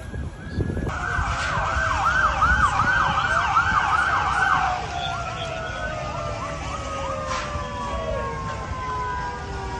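Emergency vehicle sirens: a fast yelp, rising and falling a few times a second, for about four seconds, then slower rising and falling wails from more than one siren overlapping.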